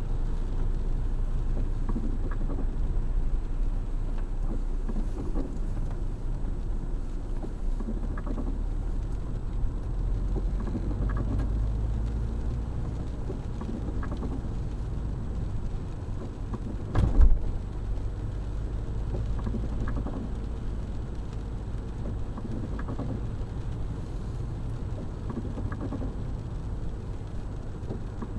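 Inside a car driving on a wet road in the rain: a steady low rumble of engine and road, with the windshield wipers stroking faintly about every three seconds. One loud thump about two-thirds of the way through.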